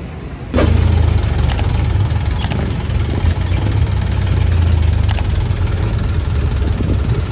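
A jeep's engine running with a steady low rumble that comes in suddenly about half a second in, with a few light clicks over it.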